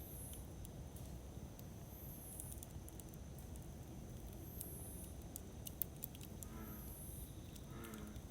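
Wood campfire burning: a low steady rumble of the flames with scattered small crackles and pops of the burning wood, one sharper pop about six seconds in. A faint high chirp recurs every two seconds or so, and a short low call comes near the end.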